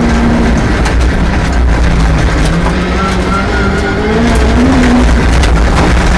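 Rally car engine running hard on a special stage, its note rising and falling with throttle and gear changes.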